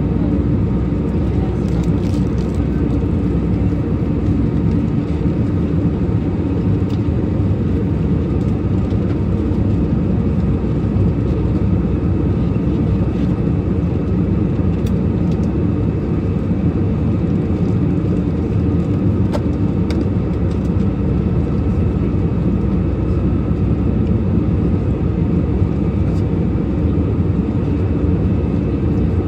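Airliner cabin noise in flight: a steady drone of engines and rushing air, with a few faint clicks.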